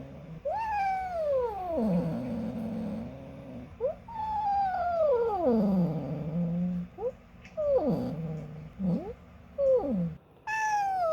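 Domestic cat making drawn-out meowing calls that slide down in pitch and trail off into a low rumbling trill. It gives two long calls, then a quick run of shorter ones, then another long call near the end.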